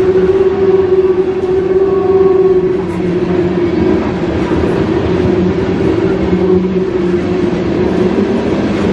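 Freight train of tank cars rolling past: steady noise of steel wheels on the rails, with a steady low hum running under it.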